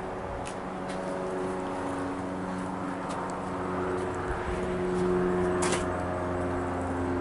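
Vehicle noise: several steady humming tones that shift in pitch, growing louder about five seconds in, with a few light clicks.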